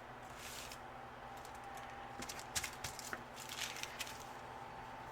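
Light clicks and taps of craft supplies being handled on a desk, a scattered run of them in the second half, over a faint steady hum.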